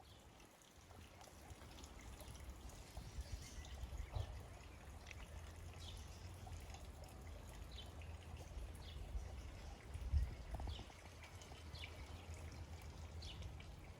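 The gust has died away, leaving a faint low wind rumble on the microphone, with rainwater trickling and dripping in short scattered ticks.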